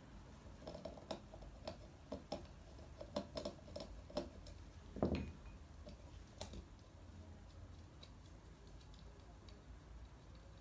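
Irregular small clicks and taps of a screwdriver and parts being handled while an LED outside light's housing is taken apart, with one duller knock about five seconds in; the clicks grow sparser and fainter near the end.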